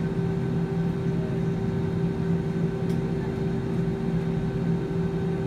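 Inside the cabin of a jet airliner: steady drone of the turbofan engines at low power, with a low steady hum, as the plane rolls along the ground after landing.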